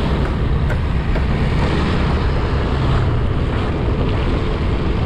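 Steady wind rush over the action camera's microphone while riding a motorcycle, with the bike's engine and road noise running underneath.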